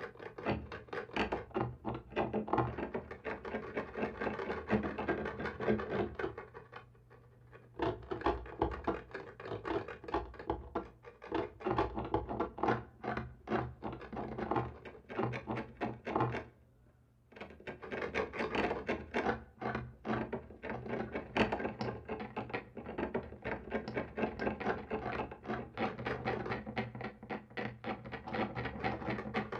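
Scratching and scraping on a wall: rapid, irregular rasping strokes, with brief pauses about seven and sixteen seconds in, over a low steady hum.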